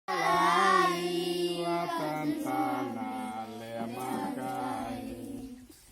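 Vocal chanting in long held low notes that step down in pitch, with other voice lines moving above them, fading out near the end.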